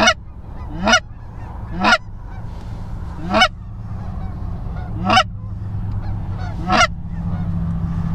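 Goose honking: six single loud honks about one to two seconds apart, each a short note that breaks upward in pitch.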